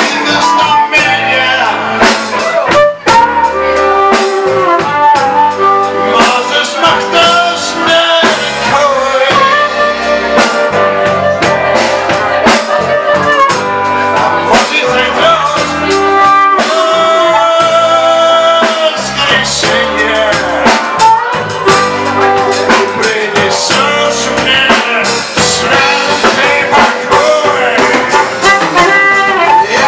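Live blues-rock band playing: electric guitars and drum kit, with long bending harmonica notes over them.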